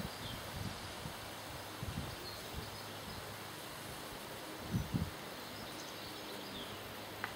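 Quiet riverbank ambience: a steady hiss with a few faint, short, high bird chirps falling in pitch, and two soft low thumps, about two and five seconds in.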